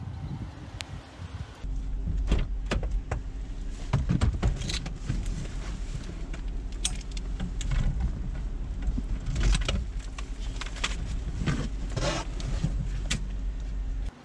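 Inside a police patrol car: a steady low hum from the car, with a run of sharp clicks, knocks and clatter as gear is handled at the gun mount between the front seats. The sound cuts off suddenly near the end.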